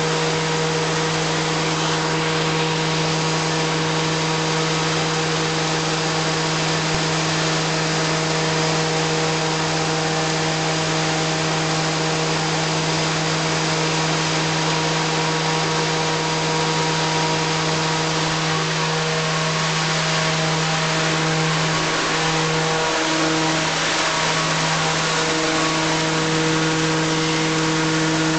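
Machinery running steadily: a loud, constant low hum with a few steady overtones under a broad rushing hiss.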